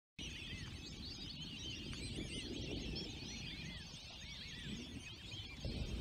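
A large flock of white-faced whistling ducks calling: many overlapping high whistles, each rising and falling, with a low rumbling noise underneath.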